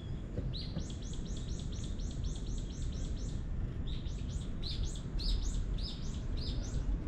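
A songbird singing two long runs of short, high, downward-sweeping notes, about four a second, with a brief pause between the runs, over a steady low rumble.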